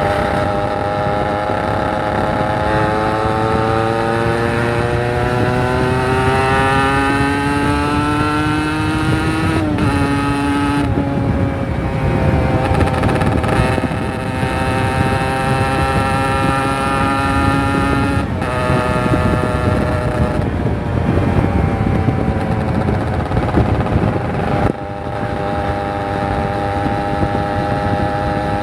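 Kawasaki Ninja 150 RR's two-stroke single-cylinder engine under way, its pitch climbing steadily as the bike accelerates. It breaks off for a gear change about ten seconds in and again about eighteen seconds in, then runs at a steadier pitch. The sound drops in loudness about twenty-five seconds in.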